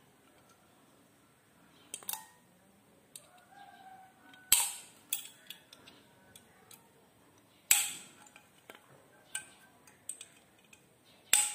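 Sharp metallic clicks, four strong ones a few seconds apart with fainter ticks between, from a hex key working the screws on a Ka-band VSAT transceiver as its neck is being taken off.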